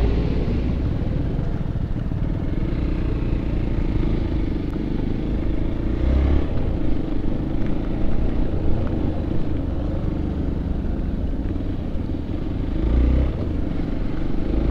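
Motorcycle engine running steadily while riding, with wind rumbling on the microphone, swelling briefly twice.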